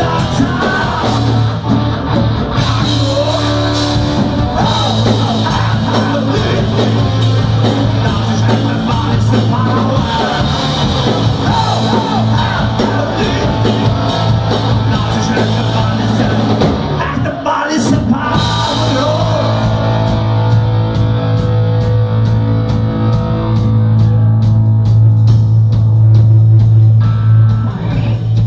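Live hard rock band playing electric guitars, bass guitar and drums, with a sung vocal. The music breaks off for a moment a little past the middle, then carries on.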